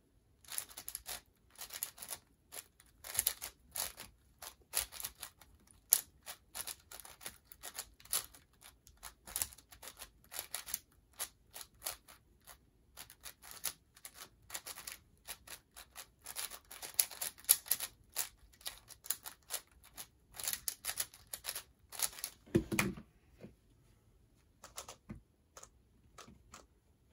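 Plastic speedcubing puzzle being turned fast: dense, irregular clicking and clacking of the layers. It stops with a soft thud about 23 seconds in, followed by a few faint ticks.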